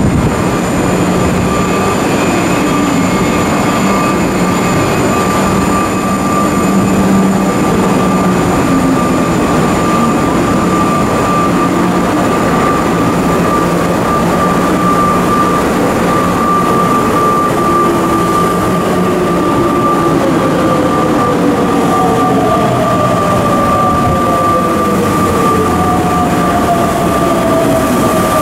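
A stationary electric train, a Chiba New Town Railway 9800 series, idling at the platform with a steady electrical hum and high whine from its equipment. In the last third, several tones slide slowly downward over the hum.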